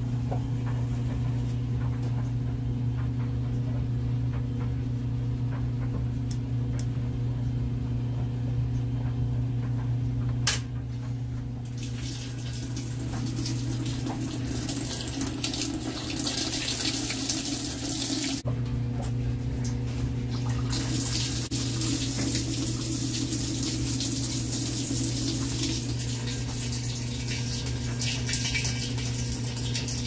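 Top-load vertical modular washer in self-diagnostic mode, with a steady low hum throughout. A click about ten seconds in is followed by water rushing from the inlet into the empty tub. The water thins out briefly around eighteen seconds in, then runs again.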